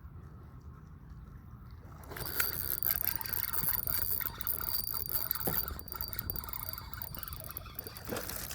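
Fishing reel winding line in fast, with a steady high whir and scratchy clicks, starting about two seconds in, as a hooked spotted bass is fought to the kayak.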